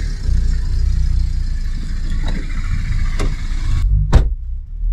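A car running: a steady low rumble of engine and road noise, broken by a few knocks, the loudest a sharp thump about four seconds in.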